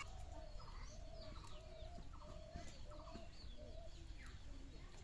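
Hens clucking softly: a steady run of short, evenly repeated clucks, about two or three a second.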